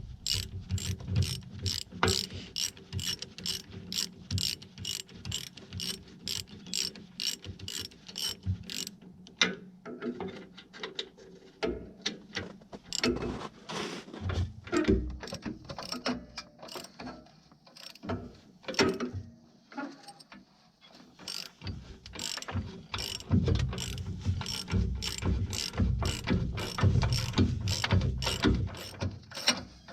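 Hand ratchet wrench clicking in quick, even strokes as nuts are worked off the rear shock mount of a tractor seat frame, with a brief lull about two-thirds of the way through before the clicking picks up again.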